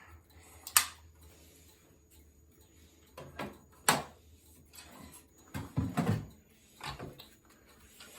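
Fire alarm pull station being handled and worked, giving a handful of sharp clicks and knocks, with a cluster of heavier clunks about six seconds in.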